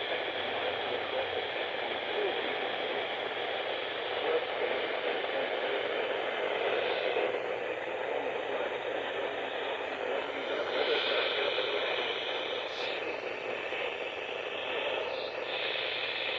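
Steady static hiss from a weather radio receiver on a weak, noisy signal from a NOAA Weather Radio station.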